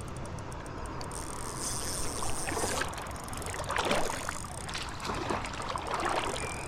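Water splashing in several irregular bursts as a hooked smallmouth bass thrashes at the surface while being brought in, over a steady rush of creek water.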